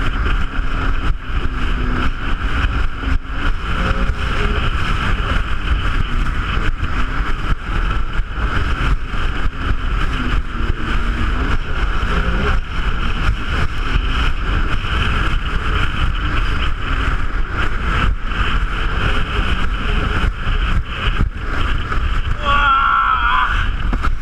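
Jet ski running steadily under way on the water, a continuous engine and jet drone with wind rumbling on the microphone.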